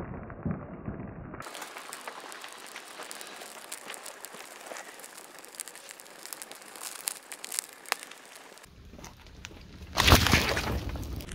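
Small fire on a plastic food packet crackling, with many sharp pops and snaps as the plastic burns. About ten seconds in, a much louder rushing noise with a deep rumble cuts in.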